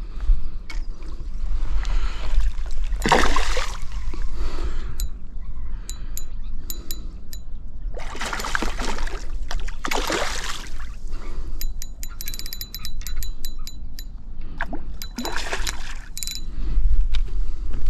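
A hooked brown trout splashing at the water's surface in four bursts as it is played close to shore. Between the later splashes comes a rapid run of clicks from the fishing reel. A low wind rumble on the microphone runs underneath.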